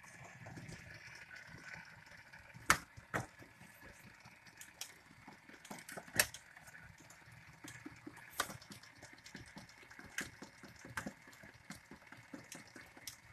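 Electric stand mixer running with a steady whir, its beaters whipping a cream cheese and whipped topping mixture in a stainless steel bowl. Sharp clicks and knocks are scattered through it, the loudest about three and six seconds in.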